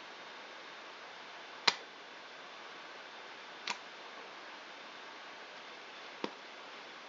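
Three short, sharp clicks or taps, the first the loudest, spaced about two seconds apart over a steady low hiss.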